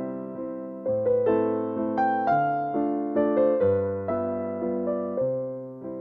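Background piano music: notes struck about twice a second, each fading away, over lower bass notes that change every second or so.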